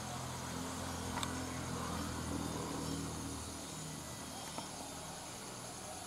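Low, steady engine hum, as of a distant motor vehicle, fading out about halfway through, with a couple of faint clicks.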